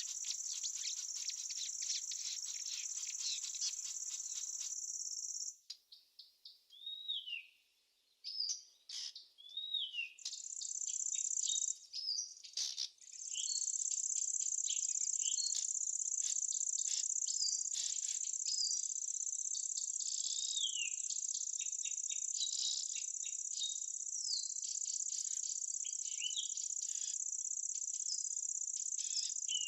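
Insects trilling in a steady high-pitched drone that cuts off abruptly about five seconds in. Songbirds then call with short, falling chirps, and the insect trill comes back about halfway through and carries on beneath the birdsong.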